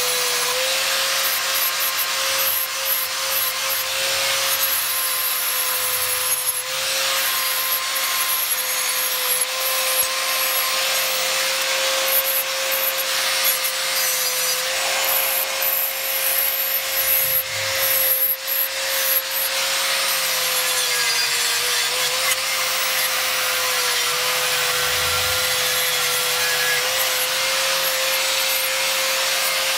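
Corded angle grinder with a green flap disc running steadily and grinding the steel face of a knife blade: a high, steady motor whine over the harsh rasp of the disc on metal. The whine sags slightly in pitch at times as the disc is pressed harder into the blade.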